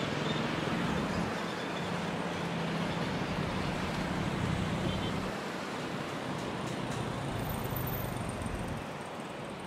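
Steady roar of a Boeing 737-900ER's CFM56 jet engines after touchdown, heard from a distance, easing slightly near the end.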